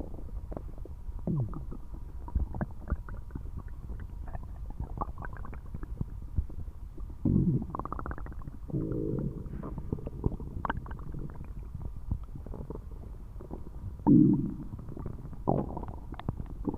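A person's stomach rumbling and gurgling loudly, a low steady churn broken by short pops and several longer gurgles, the loudest about seven and fourteen seconds in.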